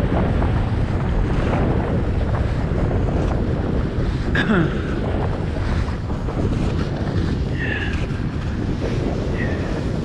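Wind buffeting the microphone of a skier's camera during a downhill run, mixed with the hiss of skis on groomed snow. A faint click and a few brief, faint high squeaks come about halfway through and near the end.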